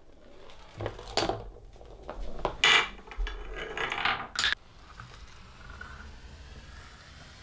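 Small objects of a tabletop Rube Goldberg machine clattering and knocking on wood: several sharp clacks over the first four and a half seconds, then a faint steady rolling as a wooden lazy Susan turns.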